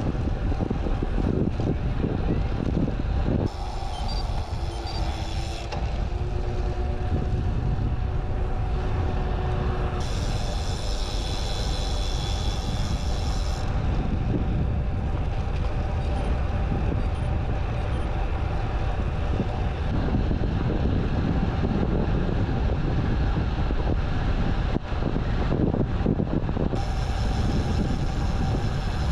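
Wind buffeting the microphone of a rider on a moving road bike: a steady low rush throughout.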